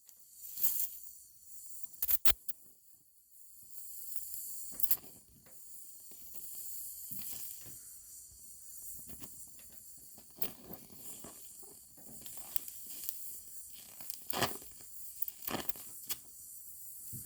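Welding on a thin sheet-metal patch in a car body sill: a steady hiss with irregular crackling and sharp pops as the weld is run.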